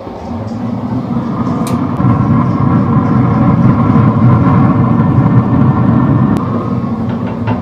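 Steady low rumble with a faint even hum over it, growing louder over the first two seconds and then holding.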